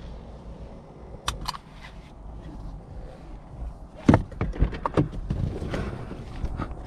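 Scattered clicks and knocks in a car cabin with the engine switched off. About four seconds in there is a louder cluster of sharp clicks and clunks as the Mustang's driver door is unlatched and swung open.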